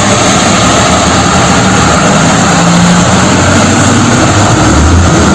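Diesel engine of a heavy fuel tanker truck running as it drives on a wet road, under a loud, steady hiss.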